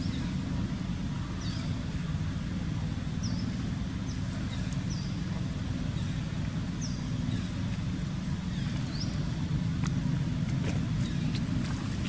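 Outdoor background noise: a steady low rumble with a short high chirp repeating about every one to two seconds.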